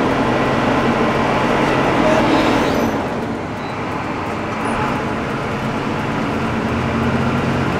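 Diesel engine of a Hino AK front-engine bus running steadily; its hum eases off about three seconds in and comes back up near the end.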